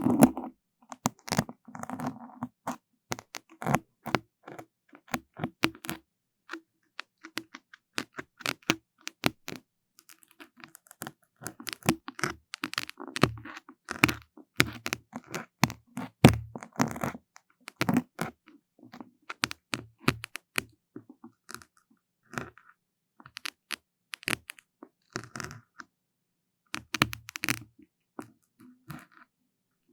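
Close-miked ASMR trigger sounds: irregular crackling and sharp clicks, coming in clusters with short silent gaps between them.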